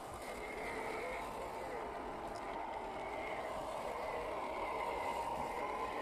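A 1/10-scale RC crawler's brushed 550-size electric motor and gear train whining steadily as it crawls over sandy mounds, the pitch wandering up and down a little with throttle and load.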